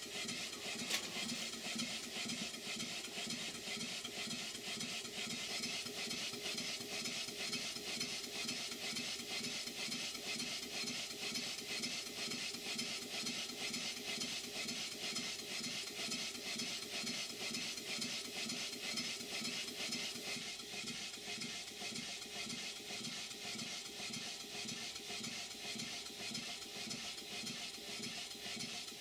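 Large single-cylinder horizontal model steam engine with a slide valve, running smoothly at a steady speed: a fast, even beat with a hiss throughout.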